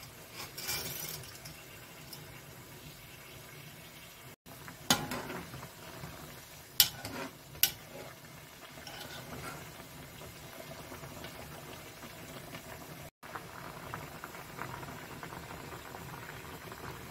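Water boiling steadily in a pan as dry spaghetti goes in and is stirred with metal tongs, with a few sharp clicks of the tongs against the pan.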